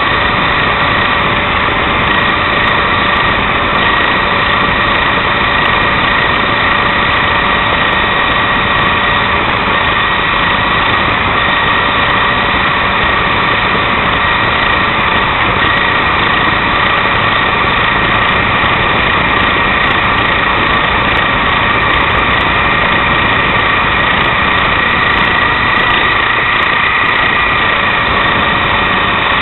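Bullbat Sky Spy toy remote-control helicopter's electric motors and rotors running, heard close up from its onboard camera: a steady, even whine holding a few constant pitches over a rough buzz.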